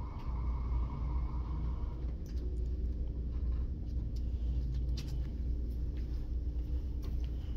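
Steady low room rumble, with a few faint clicks about two and five seconds in.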